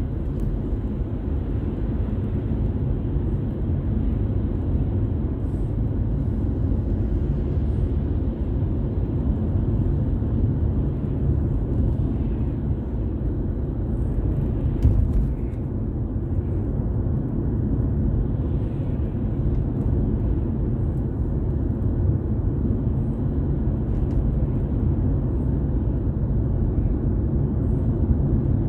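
A car driving on the road, heard from inside: a steady low rumble of road and engine noise, with one brief knock about halfway through.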